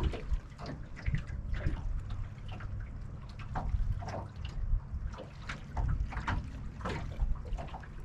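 Small waves lapping and slapping against the hull of a small fishing boat, in irregular little splashes, over a steady low rumble of wind on the microphone.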